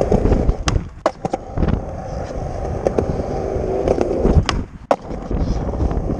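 Skateboard rolling on a concrete skatepark, its wheels rumbling steadily, with several sharp clacks of the board scattered through; the loudest come about four and a half seconds in, followed by a brief quieter moment.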